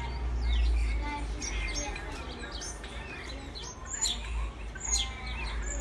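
A small songbird singing a varied song of quick chirps and whistled notes that glide up and down, over a steady low rumble.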